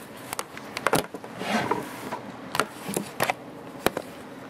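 Handling noise as a camera is repositioned: a few sharp clicks and knocks with a short rubbing swish.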